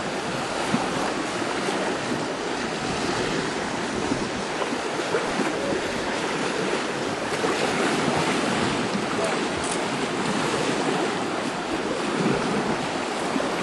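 Steady rushing and splashing of river water around an elephant wading through it.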